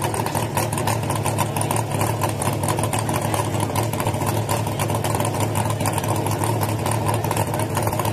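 Race pickup truck's engine idling steadily at close range, with a fast, even firing beat.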